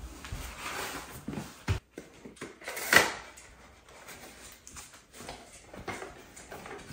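Handling noises of a paint roller: scuffing and rustling as a roller cover is handled and slid onto a wire roller frame, with a sharp knock about three seconds in.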